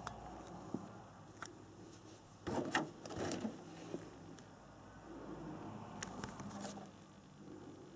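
Clear polycarbonate RC car body shell being handled and turned over: plastic rubbing and light knocks, with a louder rustle about two and a half seconds in.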